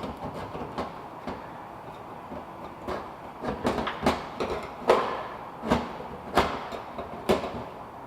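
Fuel pump and sending unit assembly being twisted and worked out through the opening of a 1993 Ford F250's rear fuel tank: a run of irregular clunks, knocks and scrapes, starting light and getting busier, the loudest about five seconds in.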